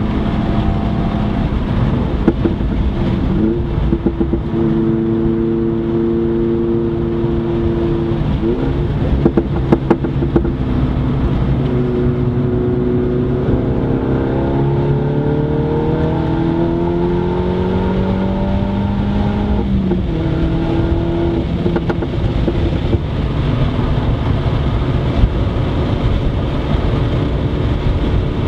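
MINI hatchback's engine heard from inside the cabin on a track lap, over steady road and tyre noise. The engine note holds steady, drops about eight seconds in, then climbs steadily in pitch under acceleration for several seconds before dropping again about twenty seconds in.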